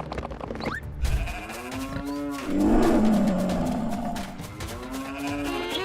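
Cartoon cows mooing: several long drawn-out calls, the loudest and roughest about three seconds in, over background music.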